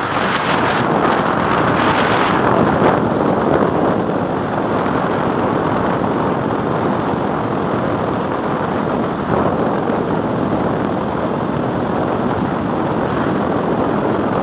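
Steady rush of wind and road noise from a vehicle moving fast, with wind buffeting the microphone, a little harder in the first few seconds.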